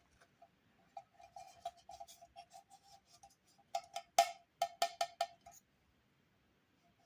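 A quick run of light clicks and clinks, each with a short ringing note, from toy kitchen play-set pieces being handled and knocked together. The clinks are loudest and come in a dense cluster past the middle, then stop.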